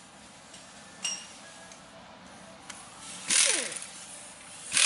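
Ratchet wrench clicking in short spurts as the A/C belt idler pulley's tensioner bolt is tightened, with a light metallic clink about a second in.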